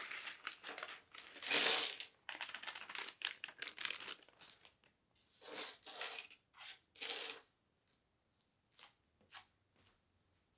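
Plastic parts bags crinkling and tearing as they are opened and a kit of small circuit boards, connectors and components is tipped out onto a rubber cutting mat. The rustling stops after about seven seconds, followed by a few light clicks as parts are set down.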